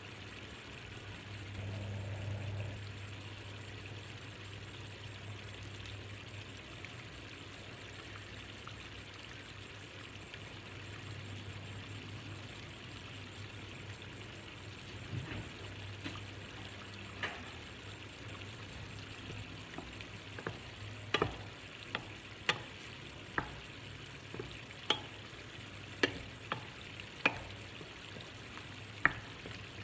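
Ground-meat bolognese sauce frying gently in a stainless steel pan with a soft steady sizzle, then from about halfway through a wooden spoon stirring in tomato paste, knocking sharply against the pan's side roughly once or twice a second.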